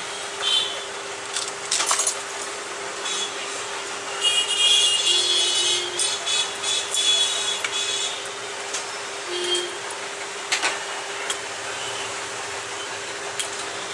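Busy street background noise with a steady hum, scattered sharp little clicks, and a louder stretch of high ringing tones about four to seven seconds in.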